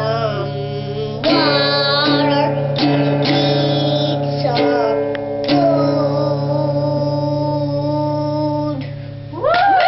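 A young boy singing long, drawn-out notes over a guitar accompaniment, the last note held for about three seconds.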